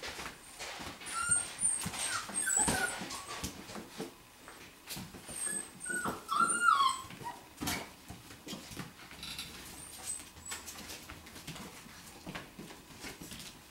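Five-week-old golden retriever puppies playing: high-pitched puppy whines and squeals in two short bursts, about a second in and again around six seconds in, over scuffling and light clicks.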